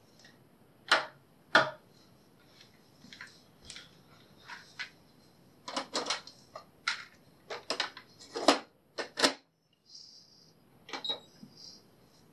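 Sharp plastic clicks and knocks from a Panasonic RX-DT55 boombox's buttons and cassette deck being worked by hand. There are two loud knocks about a second in, then a quick run of clicks between about six and nine seconds in, and a few more near the end.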